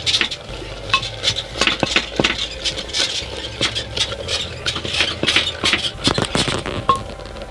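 Wooden masher pounding and churning boiled saag greens inside a clay handi: repeated irregular knocks of wood on clay, about two or three a second.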